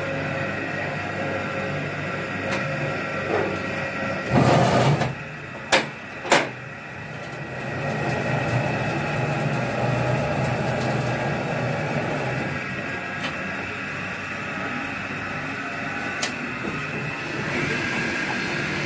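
Borewell drilling rig's motor running steadily, with metal clanks from the drill pipe being worked at the rig's clamp: a loud clatter about four seconds in, then two sharp metal strikes about half a second apart.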